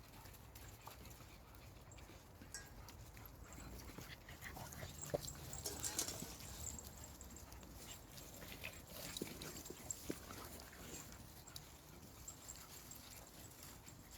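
Faint sounds of American bully puppies playing: scattered light scuffles and small clicks, a little louder around the middle.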